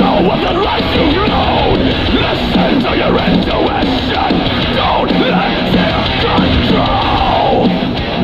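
Loud heavy rock music with vocals.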